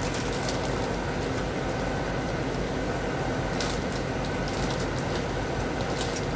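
Steady background machine noise, with brief crinkling of the plastic grow bag as the shiitake block is pulled out of it, a little past the middle and again near the end.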